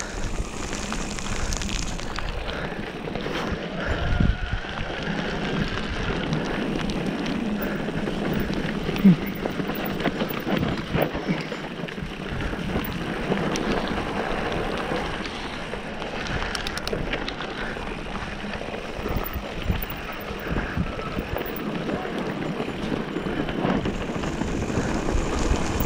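Mountain bike ridden down a wet dirt trail: steady tyre noise over the ground with many small knocks and rattles from the bike over bumps, and wind on the microphone.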